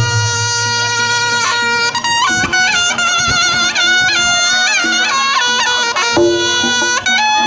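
Reog Ponorogo music: a slompret, the Javanese shawm, plays a loud, wavering, heavily ornamented melody over lower repeated percussion notes and occasional drum strokes.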